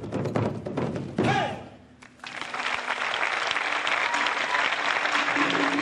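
Tahitian drumming with fast, sharp strikes ends with a shout from the performers. After a brief pause about two seconds in, a large audience breaks into steady applause and cheering.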